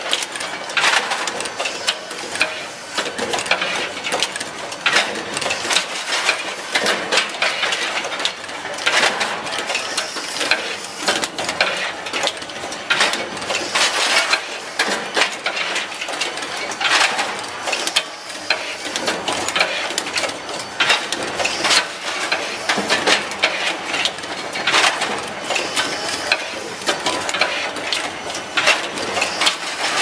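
Power strip automatic assembly machine running: a continuous, dense clatter of mechanical clicks and knocks as its mechanisms move and press the plastic socket housings.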